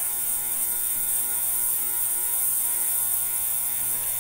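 Ultrasonic cleaner running mid-cycle: a steady buzz under a high hiss.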